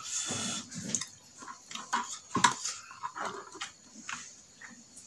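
Close-up eating sounds of a man eating bakso meatball soup: irregular chewing and wet mouth noises, with a sharp, loud click about two and a half seconds in.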